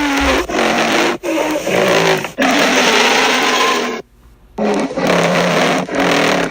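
Deinotherium creature sound effect: a string of loud, harsh, growling calls, each a second or so long, broken by short pauses and a brief silence about four seconds in.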